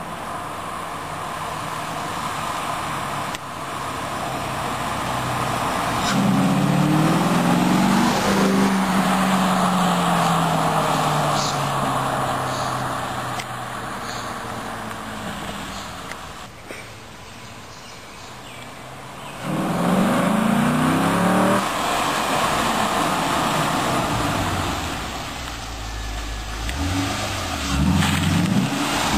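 Chevrolet C5 Corvette Z06's LS6 V8, breathing through a Vararam ram-air intake, accelerating hard at full throttle: the revs climb loudly about six seconds in, then the sound falls in pitch and fades as the car draws away. A second hard acceleration comes about twenty seconds in, and near the end the engine revs up and down as the car drives up close.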